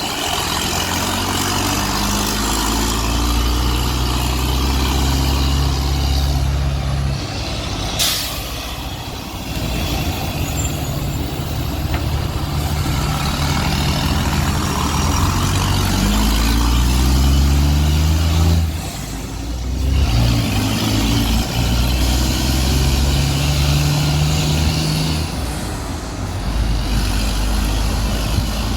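Diesel engine of a charter coach with an Irizar Century body pulling away and accelerating, its pitch climbing through each gear and dropping at three gear changes. About eight seconds in, a sharp hiss of compressed air.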